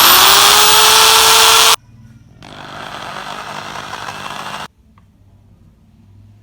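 Electric drill boring holes through a motorcycle's cracked plastic tail panel so it can be wired together. Its whine is still rising at the start and then holds steady, and it stops just under two seconds in. A second, quieter run follows from about two and a half seconds to nearly five seconds in.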